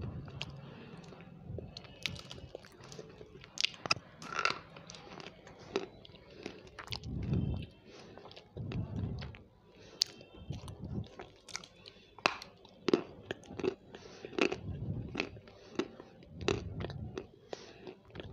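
A person biting and chewing food, with irregular sharp crunches and softer chewing in between.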